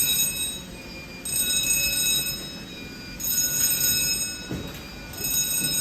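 Electric alarm bell ringing in repeated bursts of about a second and a half, with short gaps between, roughly every two seconds.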